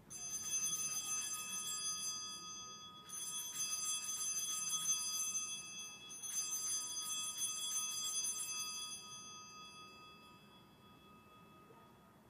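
Altar bells rung three times at the elevation of the chalice, each ring lasting about three seconds, then fading away.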